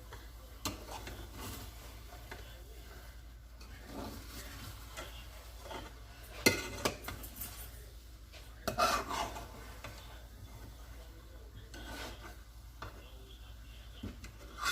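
A spoon stirring and scraping rice in a pot, with scattered clinks and a sharp clack about six and a half seconds in. The cooking water has boiled off, so the rice is being turned over.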